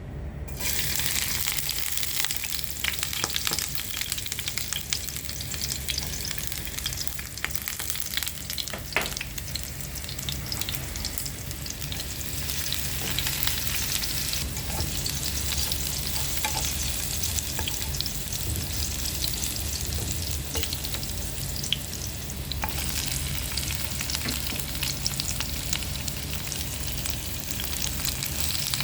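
Food sizzling and crackling in hot oil in a pan while being stirred, as pancit bihon ingredients are sautéed, with a steady low hum underneath.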